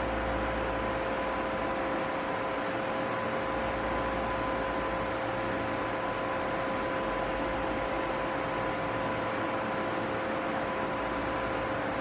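Arno Silence Force VF6M electric table fan running steadily: an even rush of air with a steady hum, under a low rumble from outside that swells and fades several times.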